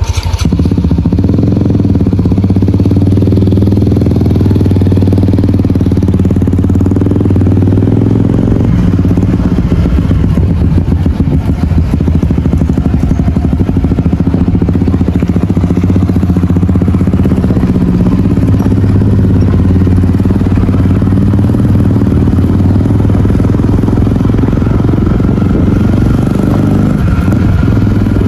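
Motorcycle engines running steadily as the bikes ride along a road.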